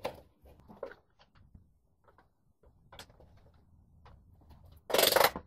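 Clicks and knocks of parts and a hand tool being handled at a motorcycle footrest mount, with a short, loud burst of noise near the end.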